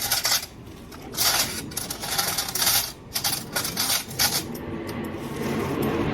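Bursts of clinking and rattling as dishes and utensils are handled during the first four seconds, then a steady rushing noise swells near the end.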